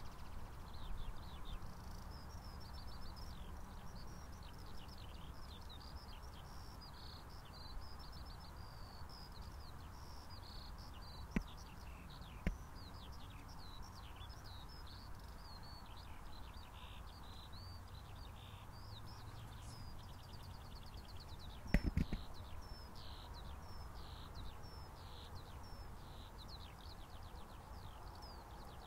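Songbirds singing continuously, a dense run of chirps and trills, over a low steady rumble, the distant idling jet engines of the landed Boeing 737. A few brief knocks cut in, the loudest about two-thirds of the way through.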